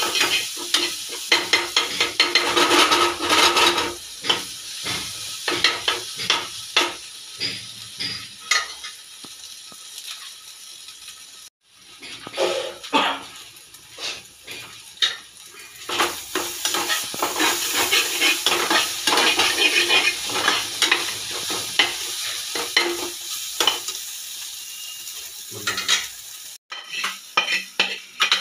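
Masala egg bhurji sizzling in a steel pan while a metal spatula stirs it, with frequent scrapes and taps of the spatula against the pan. The sound cuts off abruptly twice, and near the end the spatula scrapes the bhurji out of the pan onto a plate.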